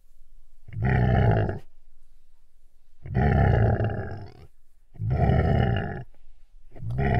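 A large animal giving four deep calls, each about a second long and a second or so apart. The last call is cut off at the end.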